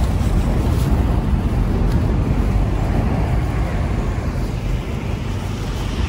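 Wind buffeting the microphone of a handheld phone in a snowstorm: a loud, unsteady low noise with no clear tones in it.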